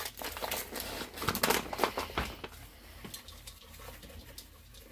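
Paper packaging of a box of hush puppy mix crinkling and tearing as it is opened, a run of crisp rustles and clicks, followed by quieter rustling and a soft patter as the dry mix is poured into a bowl.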